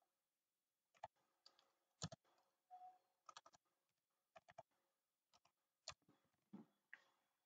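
Faint computer keyboard keystrokes: about a dozen single key clicks at an uneven, slow pace as a word is typed out.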